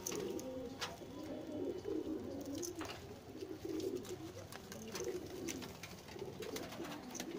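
Domestic pigeons, red Madrasi pigeons among them, cooing over and over in a low, wavering murmur, with a couple of sharp clicks about one and three seconds in.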